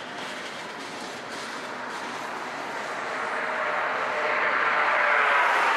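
Freight train cars, mostly empty gondolas, rolling past with steady wheel-on-rail noise. The noise grows louder over the last couple of seconds.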